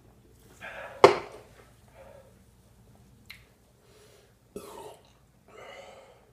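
A man gasping and coughing after trying to chug a soda, with a sharp cough-like burst about a second in and a few breathy exhales later.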